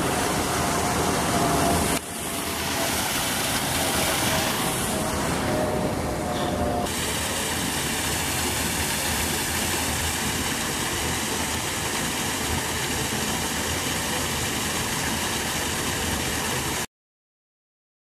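Thin waterfall pouring onto rock: a steady rush of falling water, with a faint high steady tone over it for the first several seconds. It cuts off suddenly near the end.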